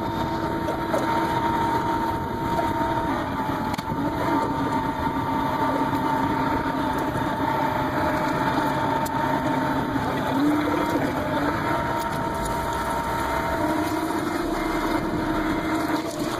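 Heavy diesel machinery running steadily: a constant engine drone with a steady whine over it.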